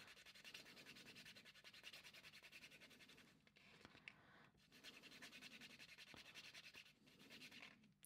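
Copper wire clasp rubbed quickly back and forth on the polishing side of a nail buffer block: a faint, rapid scratching of many strokes a second, with brief pauses about three and a half and four and a half seconds in. This is the final polishing stage that brings up the metal's lustre.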